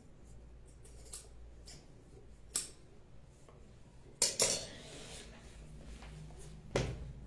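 Knitting needles clicking and tapping against each other as yarn is worked, a few uneven light clicks with louder ones about two and a half, four and a half and near seven seconds in.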